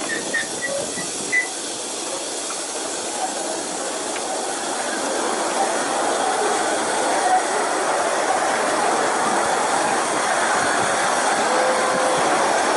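7¼ inch gauge miniature train running on the track, a steady hissing noise that grows louder after a few seconds.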